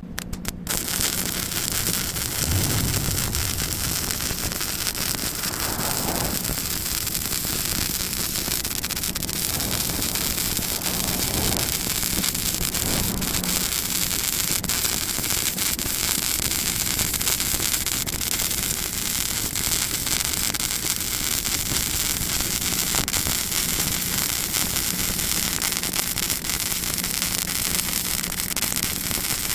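Lincoln 180 MIG welder laying a continuous bead on steel: the arc's steady crackling sizzle, starting just after a few quick ticks, with a faint low hum under it.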